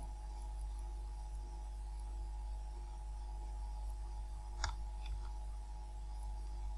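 Steady low electrical hum on the recording, with two short computer-mouse clicks about two-thirds of the way through.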